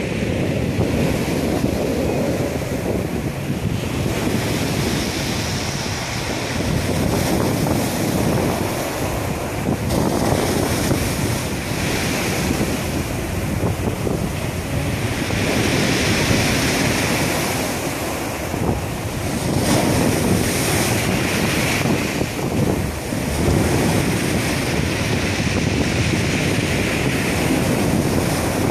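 Rough sea waves breaking against shoreline rocks: a continuous surf that swells and eases every few seconds, with wind buffeting the microphone.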